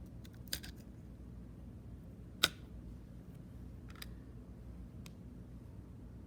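A few short, sharp clicks and taps of hard plastic from a cassette tape and its case being handled, the loudest about two and a half seconds in, over a low steady hum.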